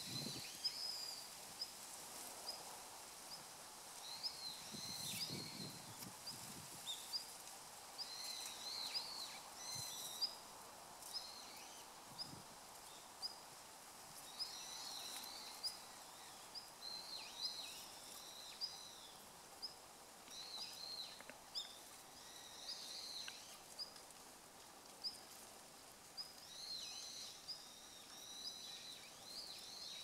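Male long-tailed rosefinch giving its calls: short, high, thin notes, some single and some in quick little runs, repeated every second or two.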